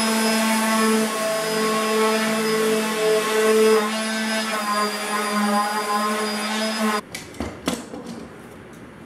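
Electric palm orbital sander running against an oak box, a steady motor hum whose pitch shifts a little under load. It stops suddenly about seven seconds in, followed by a few short knocks.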